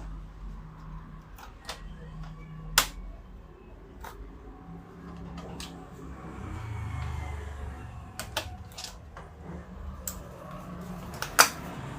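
Laptop parts and small tools being handled on a workbench: scattered light clicks and taps, with two sharper clicks about three seconds in and near the end, over a low hum.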